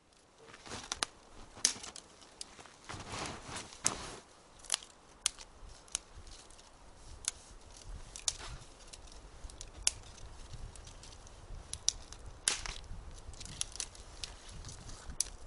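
Dry dead twigs being snapped off a pine trunk by hand: a string of sharp, irregular snaps and cracks, with softer crunching between them.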